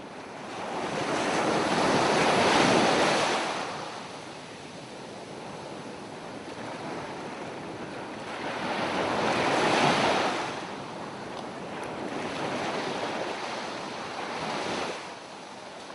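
Sea waves breaking on a beach: a steady hiss of surf that swells and ebbs, loudest about two and a half seconds in and again about ten seconds in, with smaller surges near the end.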